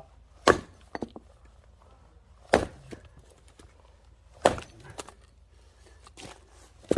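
Axe splitting short firewood pieces, each in a single blow: four sharp chops about two seconds apart, each followed by a lighter knock of wood.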